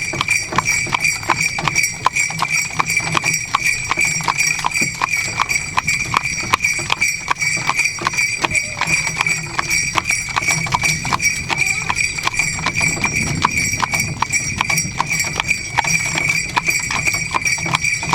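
Sleigh bells on a horse's harness jingling without a break, with the horse's hooves clip-clopping in a steady, even rhythm as it pulls a buggy.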